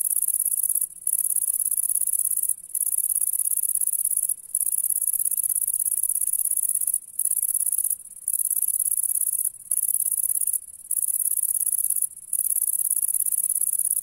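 A green bush-cricket (katydid) stridulating: a very high-pitched, fast buzzing trill sung in long bouts of one to two and a half seconds, each broken off by a short pause.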